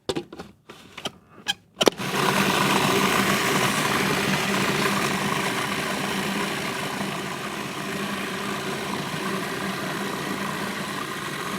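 A few clicks and knocks as the appliance is handled, then about two seconds in an electric blender's motor starts and runs steadily, blending a thick hummus of sprouted chickpeas and sun-dried tomatoes, its noise easing slightly as it goes.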